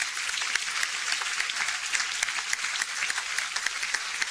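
Audience in a banquet room applauding steadily, a dense patter of many hands clapping.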